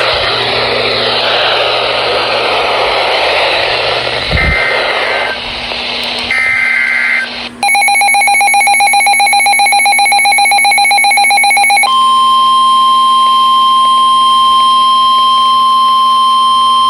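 A NOAA Weather Radio broadcast heard through a receiver. It opens with static hiss, then two short screeching SAME digital header bursts about four and six seconds in. From about eight seconds a fast-pulsing alarm beep sounds, and from about twelve seconds the steady single-pitch NOAA Weather Radio warning tone takes over, signalling that a warning (here a tornado warning) is about to be read.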